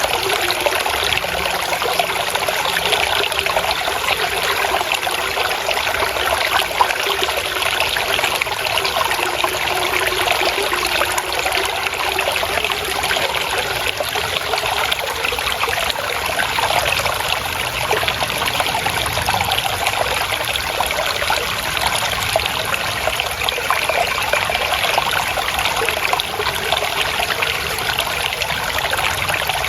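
Small stream of water trickling and splashing steadily, a continuous babble with no pauses.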